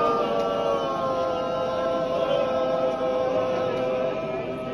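Church congregation singing together, many voices holding long notes.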